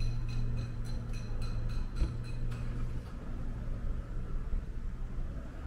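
A motor runs with a steady low hum that eases a little about two seconds in. For the first three seconds it is overlaid by a rapid, even ticking of about five clicks a second.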